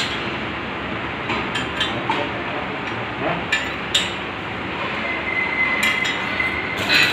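Steady workshop noise with scattered light metal clinks as spanners work bolts on steel plough parts. A thin high whine joins in for the last couple of seconds.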